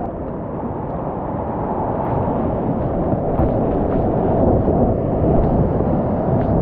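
Whitewater rapids rushing loudly around a kayak as it runs down a ledge drop, the noise growing louder as the boat goes into the white water, with a few faint splashes.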